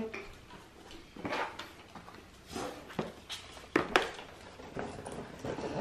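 Several short, soft rustles and taps of handling noise, spread over a few seconds, with faint room tone between them.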